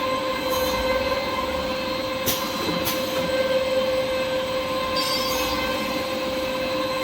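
Automatic kitchen towel log saw cutting machine running: a steady mechanical whine made of several held tones over a rumbling noise. Two sharp clicks come about two and three seconds in, and short hisses about half a second and five seconds in.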